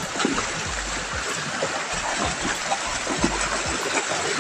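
A swollen river's current rushing steadily, with faint small splashes now and then.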